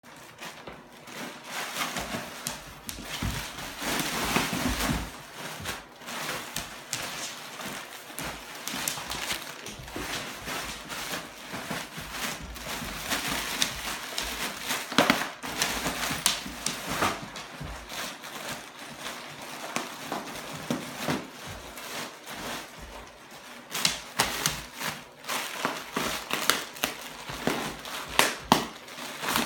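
Bubble wrap crinkling and popping under the mouths and paws of two goldendoodles, a steady crackle with many sharp pops scattered through, several of the loudest near the end.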